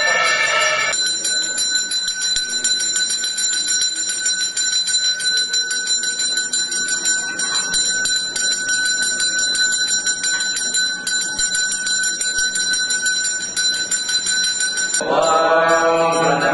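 Temple bells ringing continuously, a steady metallic ring with rapid strikes. Near the end, voices start chanting.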